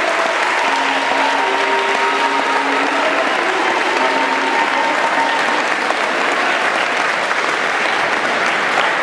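Audience applauding, a steady sustained clapping.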